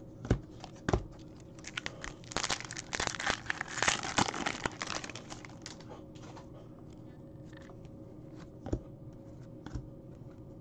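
Upper Deck hockey trading cards being handled and flipped through by hand: a few light taps, then a couple of seconds of dense crisp crinkling and rustling, then scattered soft clicks as cards are shifted in the stack.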